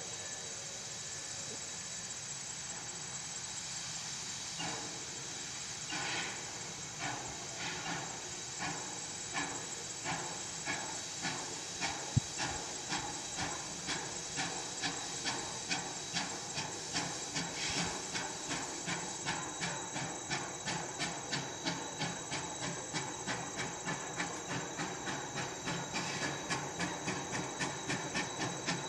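U.S. 152, a narrow-gauge 4-6-0 steam locomotive, working toward the listener. A steady hiss of steam from the cylinder cocks is joined about five seconds in by exhaust chuffs. The chuffs start slow and come quicker and louder as it draws nearer. There is one sharp clank about twelve seconds in.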